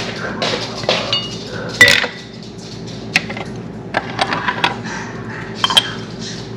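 Cups and cutlery clinking and knocking against each other and the counter, with a sharp ringing clink about two seconds in, the loudest, and another strong one near the end.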